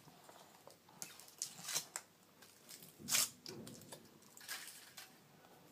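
Scattered crinkles and clicks of a chocolate surprise egg being unwrapped and opened by hand, the loudest about three seconds in.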